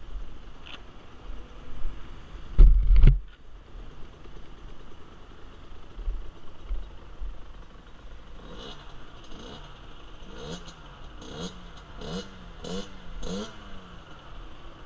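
A loud double thump about three seconds in. Later, a small 50cc motorcycle engine is blipped about seven times in a row, its pitch rising and falling with each blip.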